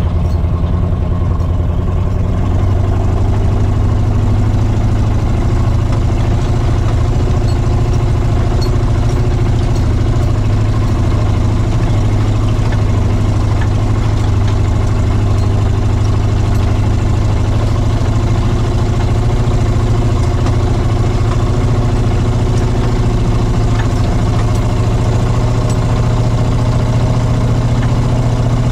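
Four-wheel-drive off-road tow truck's engine running steadily at low speed while it pulls a disabled truck hanging from its boom hook. The engine note steps up slightly about two seconds in, then holds steady.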